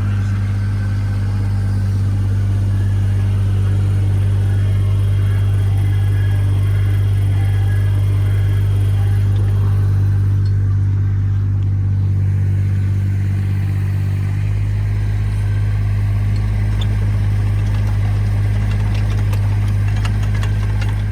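Motorised earth auger engine running steadily while boring a post hole in stony ground. Its note shifts slightly about two-thirds of the way through.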